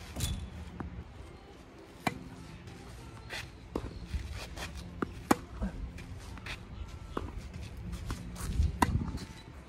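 Tennis rally: sharp pocks of rackets striking the ball and the ball bouncing on the court, one every second or two, with players' footsteps shuffling between shots.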